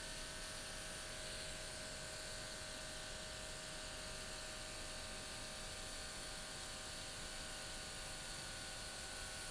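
Small airbrush air compressor running steadily: a constant buzzing hum with a hiss over it.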